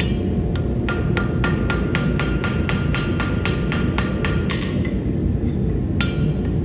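Hammer blows forge-welding a hot layered blade billet on an anvil: a quick run of strikes, about four a second, each with a short ringing note. They stop about four and a half seconds in and start again near the end, over a steady low rumble.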